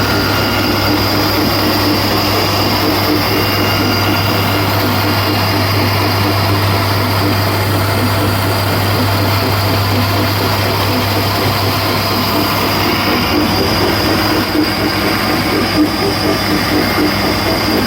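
Band saw running steadily, a constant motor hum under the noise of the blade, with no break.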